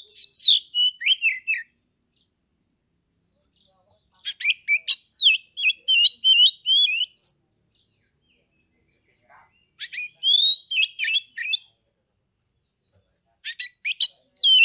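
Oriental magpie-robin singing in four bursts of varied whistled and chattering phrases, with pauses of about two seconds between them.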